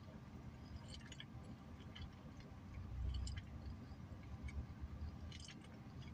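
Faint chewing: a person eating a maple waffle breakfast sandwich, with soft mouth clicks and a low rumble that swells about three seconds in.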